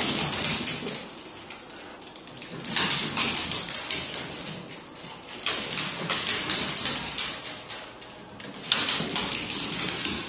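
Paws and claws scrabbling and clicking on a hardwood floor as puppies scuffle at play, in four bursts about two to three seconds apart.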